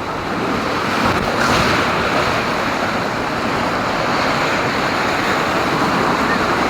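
Steady rush of moving water in a water-park lazy river, growing a little louder about a second in.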